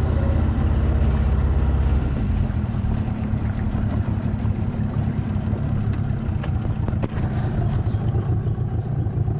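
Outboard motor running steadily as a small skiff moves across the lake, with an even rush of wind and water over the drone. The low drone eases off slightly about two seconds in.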